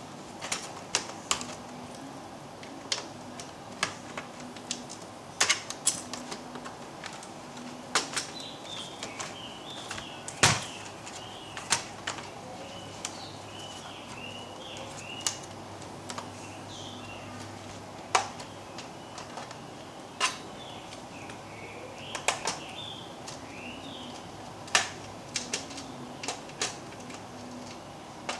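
Irregular sharp clicks and taps of hard plastic and small tools, as when a laptop is being taken apart by hand, some single and some in quick clusters, over a faint steady hum. Faint high chirps come and go through the middle.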